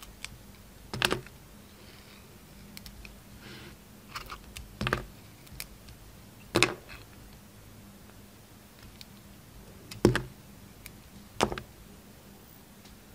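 Snap-off utility knife blade cutting into a bar of soap, giving sharp crisp cracks as pieces of the outer layer break away: five loud ones, with lighter ticks and scrapes between.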